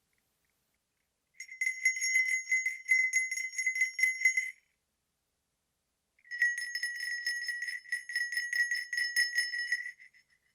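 Sleigh bells shaken in two bouts of about three seconds each, a bright jingle ringing at one high pitch, with a short pause between.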